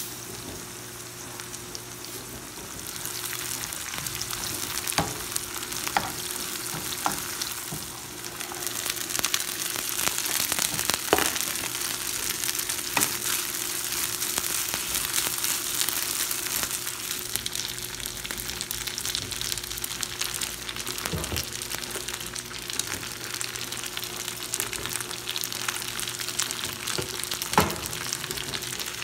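Onions and leftover cooked rice sizzling in oil in a frying pan, stirred with a metal spoon that knocks against the pan now and then.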